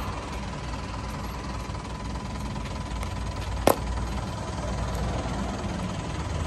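A vehicle engine idling with a steady low rumble, broken once a little past halfway by a single sharp click or knock.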